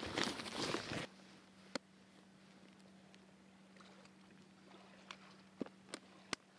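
About a second of loud rustling as gear is handled in a chest pack. Then a quiet stretch with a faint steady hum, broken by a few light, sharp clicks as a plastic fly box is opened and a fly is picked out.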